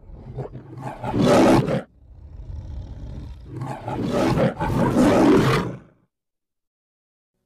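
The MGM lion's roar played backwards: two roars, each swelling up and then cutting off abruptly, the second longer than the first. The sound ends about six seconds in.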